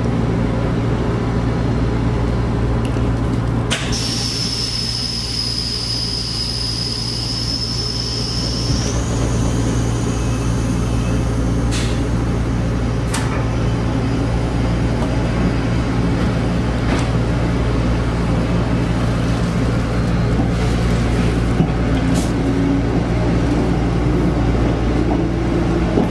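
Series 381 electric train pulling away and running, a steady low hum under it. A high steady whistle lasts several seconds early in the departure. A few sharp clicks sound along the way, and a tone rises slowly in pitch near the end as the train gathers speed.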